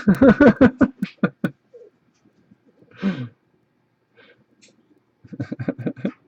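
A man laughing in quick, rhythmic bursts: a long run of laughter at the start, a short burst about three seconds in, and another quick run of laughs near the end.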